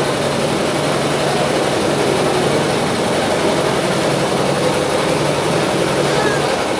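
A steady engine drone with a constant low hum, even in level throughout.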